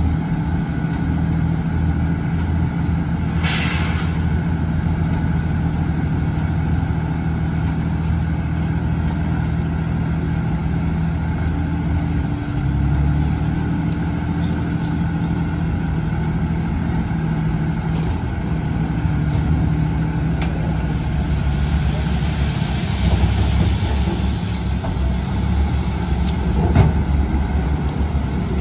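Heavy dump truck diesel engines running while their hydraulic hoists tip the loaded beds and the soil slides out. The engine note shifts about halfway through. A short, sharp hiss of air comes about three and a half seconds in.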